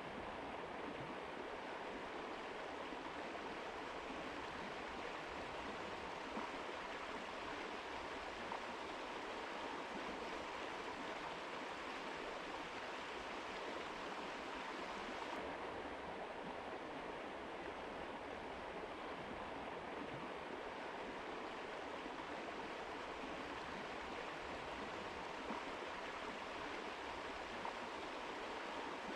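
A mountain river rushing steadily over rocks, an even wash of water noise. About halfway through the hiss turns slightly duller.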